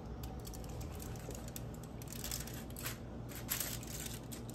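Aluminium foil around a stack of tortillas crinkling faintly a few times, the rustles clustered about two to three and a half seconds in, over a low steady room hum.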